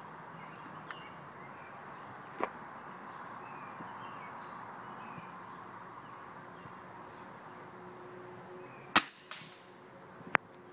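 Ruger Airhawk break-barrel spring-piston pellet rifle firing once, about nine seconds in: a single sharp crack with a short fading tail, followed by a second, weaker sharp click just over a second later. Faint bird chirps before the shot.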